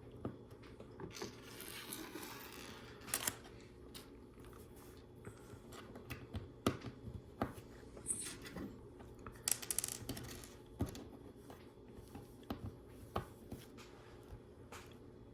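Small plastic LEGO Technic pieces being handled and picked through: scattered light clicks, with rustling near the start and again about two-thirds of the way in.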